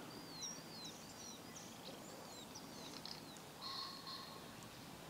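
Small songbirds singing, a run of short, quick, sliding chirps, with one brief buzzy call a little before four seconds in. Faint, over a steady outdoor background hiss.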